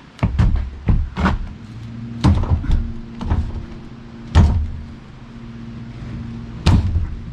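Irregular heavy knocks and clunks of a large log being rolled over on a sawmill bed, about a dozen of them, the loudest about four and a half and near seven seconds in. A steady low hum runs under them from about a second and a half in.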